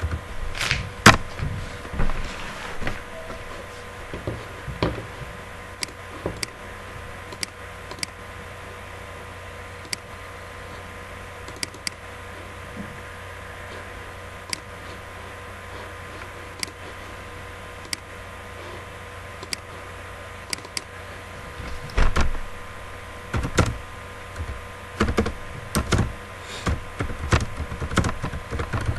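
Computer keyboard keys clicking as someone types, in quick runs of keystrokes over the last several seconds, with scattered single clicks earlier on. A steady faint hum runs underneath.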